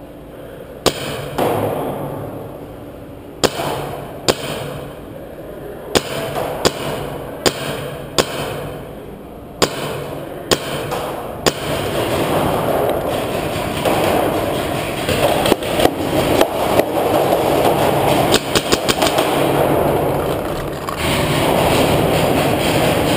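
Paintball markers firing in an underground rock cave: single sharp pops about a second apart at first, then from about halfway a dense run of rapid shots over a continuous echoing wash of noise.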